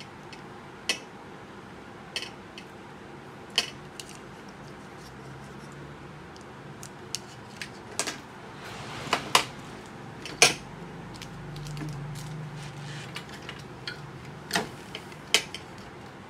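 Scattered sharp clicks and knocks of hard plastic parts being handled and set down on a glass counter as an electric duck caller's horn speakers, remote and antenna unit are unpacked and wired up, about a dozen in all, the loudest around the middle.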